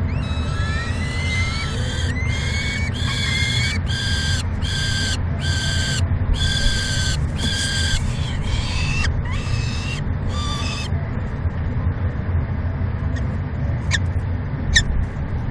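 Peregrine falcon chicks giving a run of about ten harsh begging calls, roughly one a second, some rising in pitch, while an adult feeds them. The calls stop about eleven seconds in, leaving a steady low rumble and a few brief high chirps near the end.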